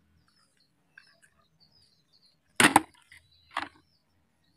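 Sharp clacks of plastic toy vehicles being handled: two close together about two and a half seconds in, then a weaker one a second later.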